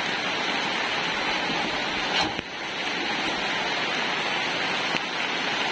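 Steady rushing noise of heavy rain falling on moving floodwater, with a brief bump about two seconds in.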